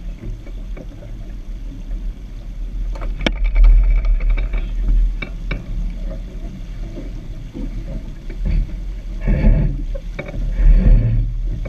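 Water rushing and splashing along a sailboat's hull under sail, with wind buffeting the camera microphone as a constant low rumble. A few sharp knocks come about three and five seconds in, and the rush grows louder near the end.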